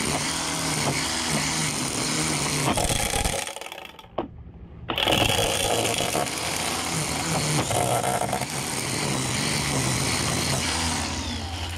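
DeWalt 20V MAX DCST922B cordless string trimmer running on its low speed setting. About three and a half seconds in it is let off and spins down, then starts up again about five seconds in and runs steadily.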